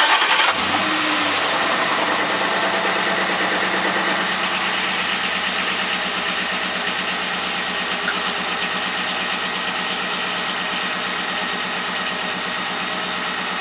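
Ford Crown Victoria Police Interceptor's 4.6-litre V8 running steadily at idle, louder for the first half-second before it settles.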